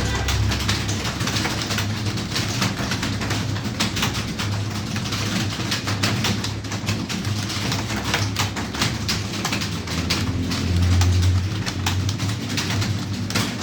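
Computer keyboard being typed on, a fast irregular stream of key clicks over a steady low hum that swells briefly about 11 seconds in.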